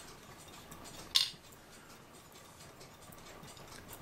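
Faint clicks of small cuckoo clock movement parts being handled, with one sharp clink about a second in.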